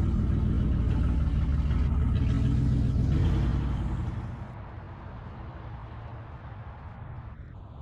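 A car's engine and exhaust rumbling loudly, then fading away about three and a half seconds in to a quieter rumble.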